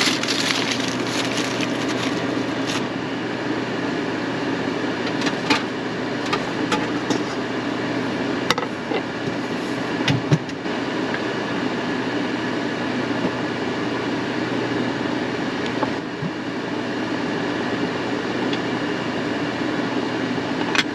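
Aluminium foil crinkling and crackling as it is folded around a cooked pork loin, with scattered sharp clicks, over the steady hum of an air fryer's fan.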